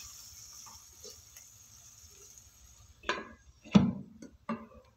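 A glass lid set down onto a frying pan: a clatter about three seconds in, then a sharp clink and a couple of lighter knocks as it settles. A few faint ticks of a wooden spatula come before it.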